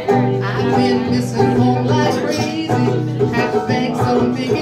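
Live acoustic music: a banjo and an acoustic guitar strummed together in a country-folk song, with singing.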